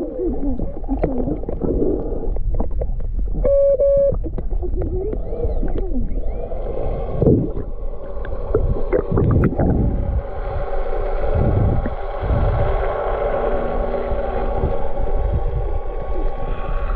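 Gurgling, bubbling water heard with the microphone at or under the surface, full of warbling sweeps. From about ten seconds in, a small motor's steady hum joins it.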